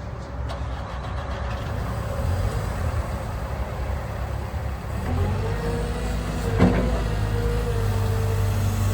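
Diesel engine of a 2014 Cat 314E LCR excavator running, its sound growing louder; about five seconds in a steady whine sets in over the engine, and there is one sharp click near the end.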